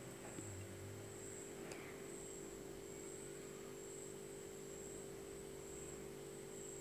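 Faint steady background hum with a thin high-pitched whine over it, and a couple of faint clicks near the start.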